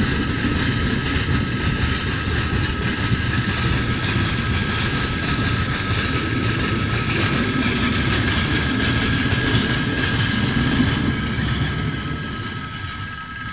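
Freight train wagons rolling past on the rails: a steady low rumble of wheels, with the level-crossing warning bell ringing continuously as a high steady tone over it. The rumble fades near the end as the tail of the train goes by.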